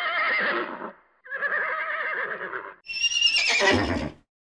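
Horses whinnying, three neighs in a row with a wavering, quavering pitch. The last starts higher and falls away.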